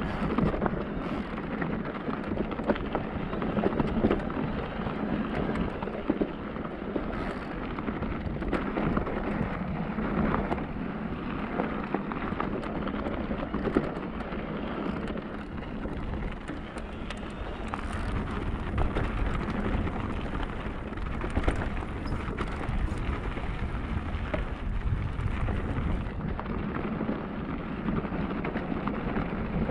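Electric mountain bike being ridden down a rough trail: the tyres roll over the loose surface in a steady crackling rush with frequent small knocks and rattles from the bike. Wind rumbles on the microphone, more strongly in the second half.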